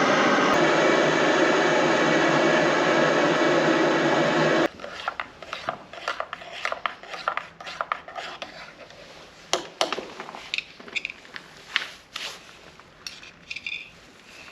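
A loud, steady rushing noise that cuts off abruptly about five seconds in, followed by quiet scattered rustling, rubbing and clicks of things being handled.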